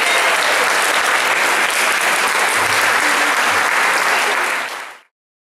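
Audience applauding steadily, fading out quickly about five seconds in.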